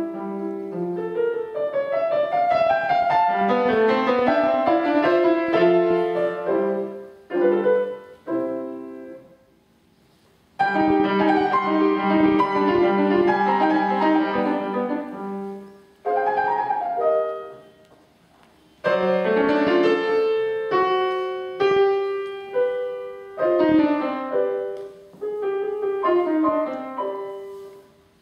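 Grand piano played solo, a classical piece in phrases broken by two short silences, one about a third of the way in and one just past halfway.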